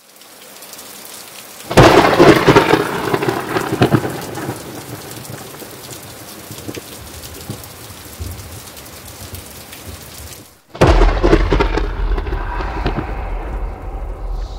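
Steady heavy rain with two thunderclaps: a sharp crack about two seconds in that rolls away over a couple of seconds, and a second one near the end with a deep rumble that fades slowly.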